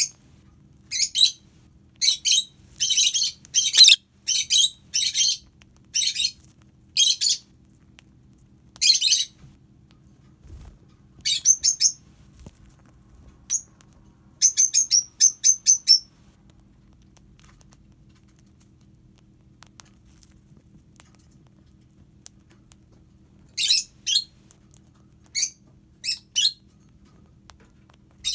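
Rosy-faced lovebird chirping in rapid strings of sharp, high chirps. They come thickest over the first nine seconds, in shorter runs about halfway through, and again after a long pause near the end.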